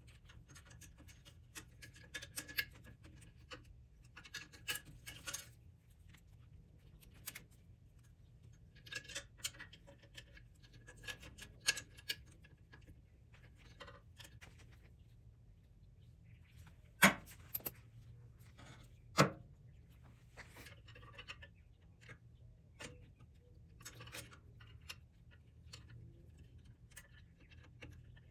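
Hand tools and small metal parts being handled: scattered clinks, clicks and rustling, with two sharp, louder clicks about two seconds apart a little past the middle.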